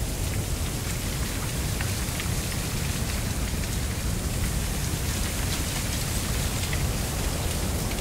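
Mistral wind blowing through a dense stand of dry giant reed (Arundo donax, 'Canne de Provence'): a steady rustling hiss of the leaves and stems, scattered with small clicks, over a low rumble of the wind.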